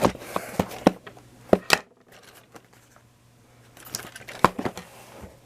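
A taped cardboard shipping box being handled and picked at by hand: scattered sharp taps, clicks and light scrapes, in two clusters with a quiet pause of about two seconds between them.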